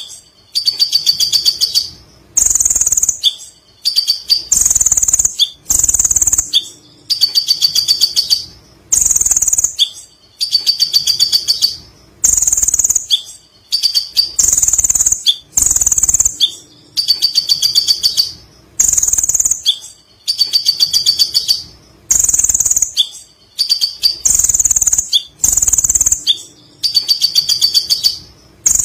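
Kolibri ninja (a sunbird) singing its high, rapid chattering trill in phrases about a second long, repeated about every two seconds.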